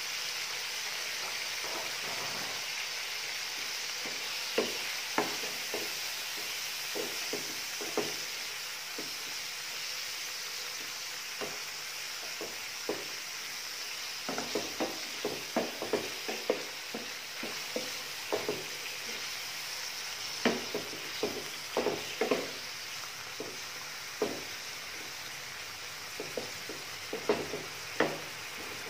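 Diced meat sizzling in hot oil in a nonstick frying pan, a steady hiss, while a wooden spoon stirs it. The spoon knocks and scrapes against the pan in several short spells of quick taps.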